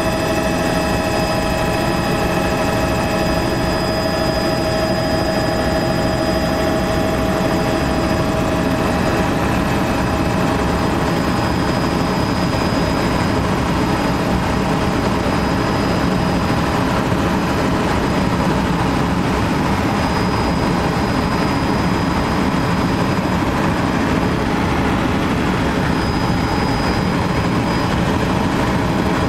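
Sightseeing helicopter's engine and rotor running steadily in flight, heard from inside the cabin: a dense, even noise with a thin high whine on top.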